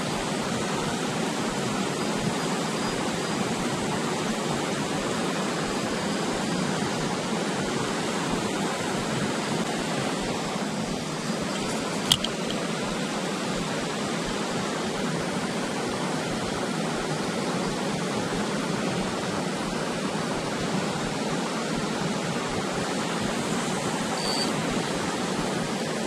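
Steady rush of flowing river water, with one sharp click about halfway through.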